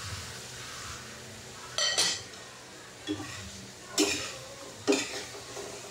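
Metal lid and spoon clattering on a cooking pan: a ringing clank about two seconds in, then three sharp knocks of a metal spoon in the pan about a second apart.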